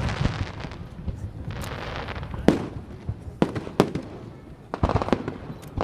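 Aerial fireworks bursting over a lake: sharp bangs at irregular intervals, with crackling and rumbling echo trailing each one.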